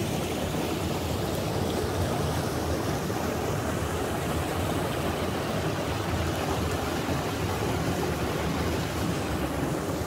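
Steady rush of a small waterfall on a mountain stream, water pouring over rocks into a clear pool.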